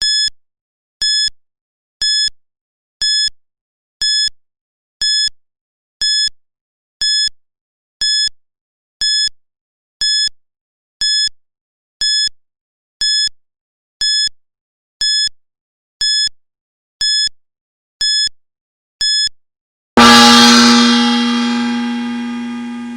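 Digital timer beeping: short, identical electronic beeps, one each second, twenty in all. About twenty seconds in, as time is up, a loud gong is struck and rings on, slowly fading.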